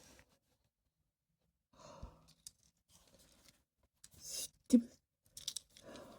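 Faint handling noises with a breathy sigh: a short exhale about four seconds in, then one sharp click, followed by a few smaller clicks and knocks.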